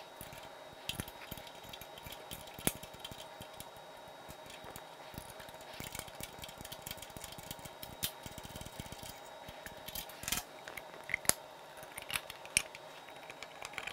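Hand tools clicking and clinking on metal as the bolts of a motorcycle's engine protection bar bracket are undone, a few sharper clicks standing out, over a faint steady hum.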